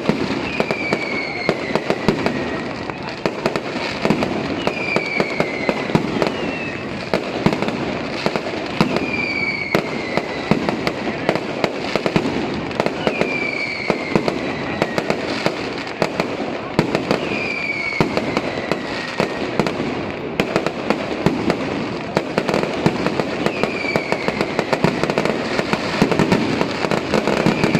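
Fireworks crackling and popping continuously with many small bangs, while a high whistle falling in pitch comes back about every two seconds.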